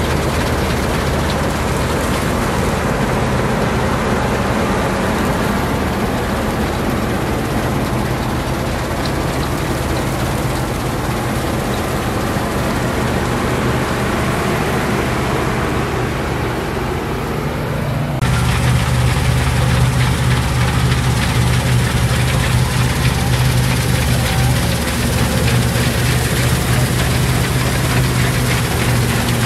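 New Holland combine harvester running as it cuts standing wheat: a steady drone of engine and machinery. About two-thirds of the way through it changes abruptly to a louder, deeper hum.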